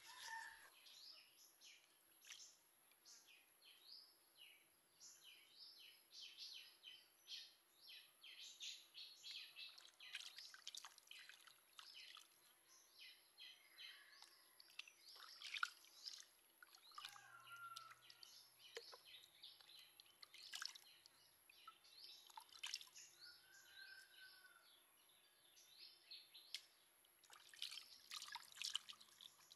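Faint water splashing and dripping as raw chicken legs are washed by hand in a pot of water, with a few short bird chirps now and then.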